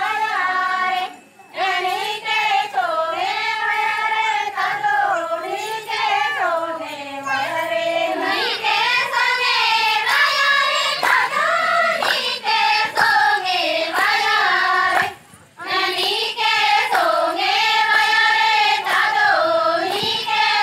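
A group of Adivasi women singing a Dandari folk song together in high voices, in repeated phrases. The singing breaks off briefly about a second in and again about fifteen seconds in.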